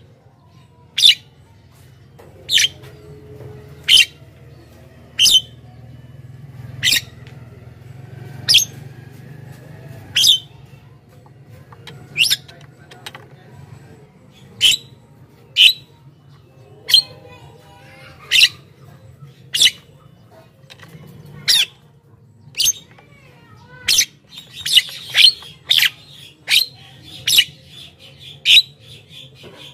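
Javan mynas calling: short, sharp calls repeated about once every second or so, coming faster and overlapping in the last few seconds.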